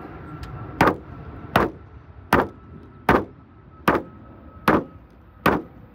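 Seven evenly spaced blows on a Ford estate car's sheet-metal bodywork, a little under one a second, as the car is being smashed up.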